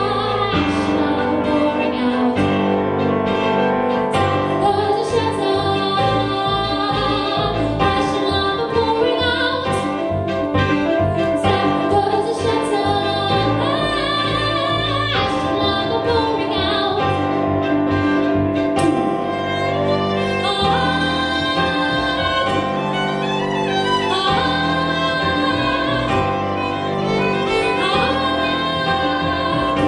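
Folk band playing: a woman singing while she plays a keyboard, with a violin alongside.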